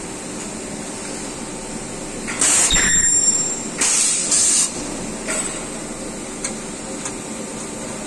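Ultrasonic plastic welding machine joining air-conditioner blower-wheel sections: a loud burst with a high ringing tone about two and a half seconds in, then two short hisses of air around four seconds, and a few light clicks as the part is handled, over a steady factory hum.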